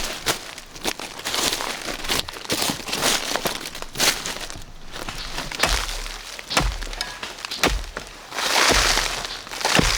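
Rustling and crackling with many scattered sharp snaps and knocks, and a louder burst of rustling near the end.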